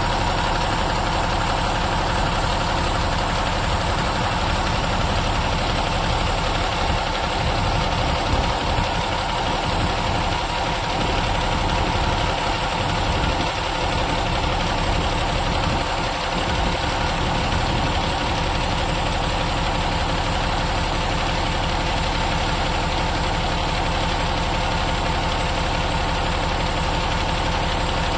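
Cummins ISM 10.8-litre six-cylinder diesel in an International 7600 dump truck, idling steadily with a diesel clatter.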